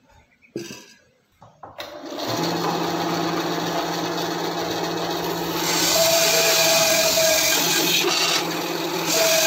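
A light knock, then a small benchtop bandsaw is switched on about two seconds in, and its motor and blade run with a steady hum. It gets louder, with a higher note added, about six seconds in, and stays loud to the end except for a brief dip near the end.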